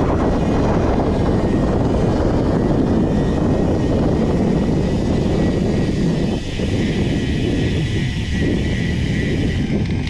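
FPV drone motors and propellers whirring in flight: a loud, steady buzz with a thin high whine over it, dipping briefly a couple of times.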